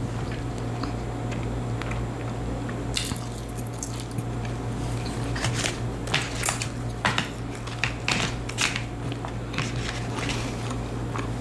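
A person chewing food close to the microphone, with repeated wet, crackly mouth sounds as fried food is bitten and chewed, over a steady low hum.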